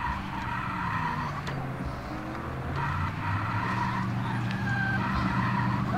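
The electric motor and gears of a radio-controlled toy car whine in spurts as it is driven over grass and dirt. Underneath is a low hum that dips in pitch partway through and then rises again.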